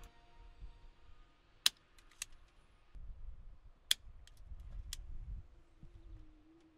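Self-adjusting automatic wire stripper clicking as its jaws grip and strip insulation off wires: about four sharp, separate clicks spread across a few seconds. A low rumble runs through the middle.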